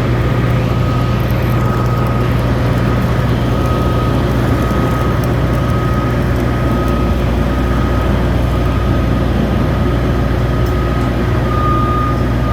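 Steady low drone of running machinery, with a thin high tone that comes and goes.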